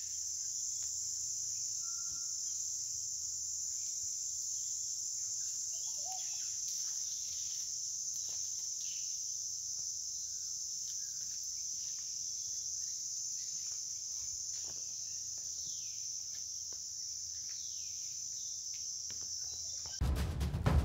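Steady, high-pitched chorus of insects in forest, with a few faint bird chirps and small clicks. Near the end, loud music with drum hits cuts in.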